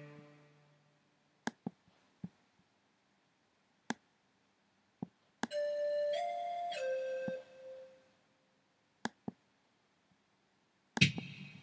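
Korg M1 Le software synthesizer. A Symphonic preset chord dies away, followed by a few short isolated clicks. The Pan Flute preset then plays three held notes, stepping up and then down, and near the end there is a single loud drum hit from the Drums #1 kit.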